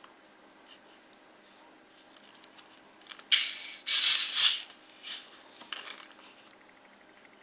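Plastic Pepsi bottle being unscrewed: a loud hiss of escaping carbonation in two spurts lasting about a second, followed by a few small clicks and handling sounds.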